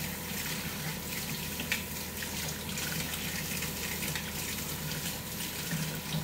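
Kitchen faucet running into a sink, the water splashing over a plastic Spam slicer being rinsed under it, with a few light knocks. A steady hum from an air fryer runs underneath.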